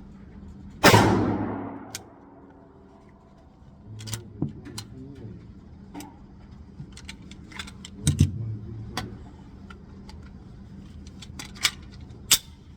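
A single loud gunshot from a .357 SIG firearm about a second in, its report ringing away for about a second. It is followed by scattered quieter metallic clicks and knocks.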